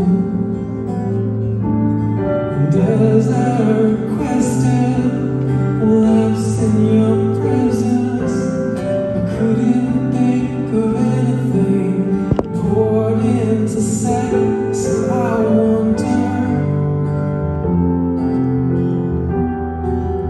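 Live acoustic guitar and stage keyboard playing a slow song in waltz time, with a male voice singing.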